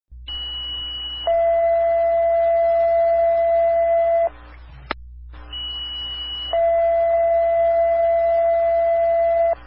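Two-tone sequential fire pager alert tones over a radio scanner: a higher tone for about a second, then a louder, lower tone for about three seconds. The pair is sent twice, each ending in a sharp click.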